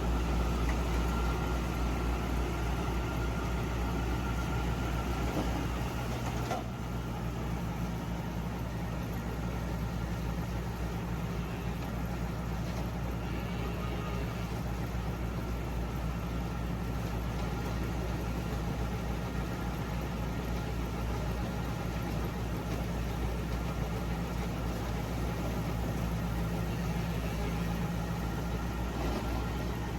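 Steady low mechanical hum of machinery running, with a slight drop in level about six and a half seconds in.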